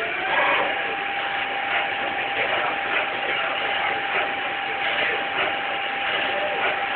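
CNC lathe running, with machine noise and a steady single-pitched whine that sets in just after the start and holds.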